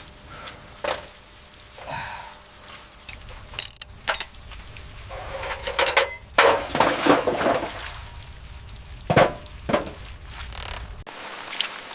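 Workshop handling sounds: irregular sharp knocks and clinks of tools and parts, with short bursts of scraping or rustling, the busiest a little past the middle.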